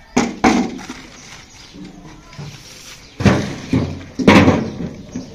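Rusty metal tins being lifted, knocked and set down on a concrete floor: a string of loud clanks and scrapes, two close together near the start and three more in the second half.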